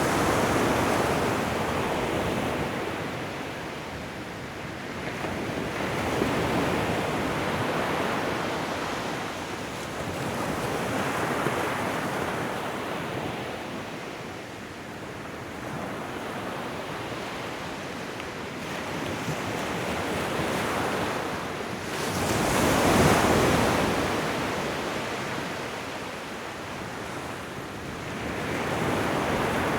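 Ocean waves breaking and washing up a shore, the surf swelling and ebbing every five or six seconds. The loudest wave breaks about three-quarters of the way through.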